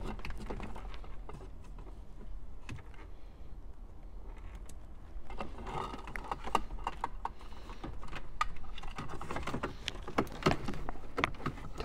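Scattered small clicks and rattles of plastic wiring connectors and an antenna adapter plug being handled and plugged in, with cables rubbing; the clicking gets busier about halfway through.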